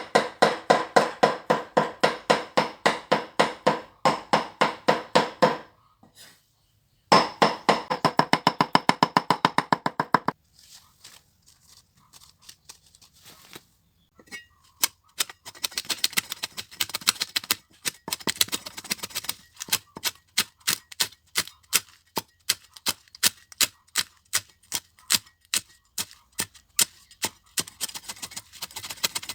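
Knife chopping fresh beef on a wooden board in fast, regular strokes, about four to six a second, with short pauses about six seconds and ten seconds in and a quieter stretch before picking up again.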